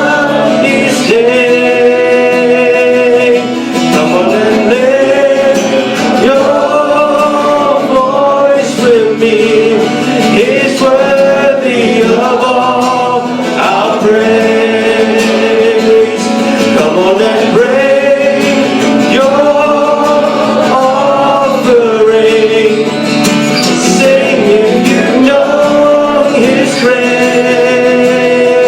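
Worship band playing and singing a song: voices holding a melody over guitar accompaniment.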